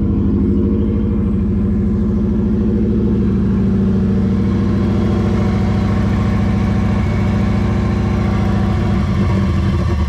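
Subaru Impreza's flat-four boxer engine running just after a hard start on a car that has been sitting. Its steady beat turns ragged and uneven about nine seconds in as it begins to falter, which the owner puts down to it running out of fuel.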